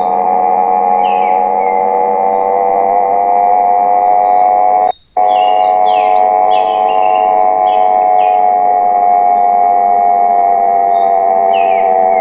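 Dinosaur-call sound effect made for an Argentinosaurus: one long, steady drone with several pitches held together, over many bird chirps. Everything cuts out for a moment about five seconds in, then the drone and chirps carry on.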